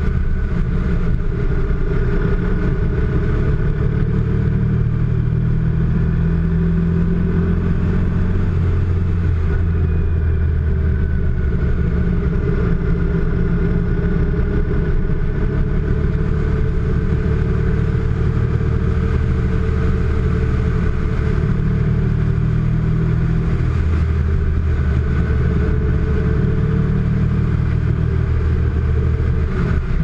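Motorcycle engine running steadily under way at a cruising speed, its low note shifting slightly now and then.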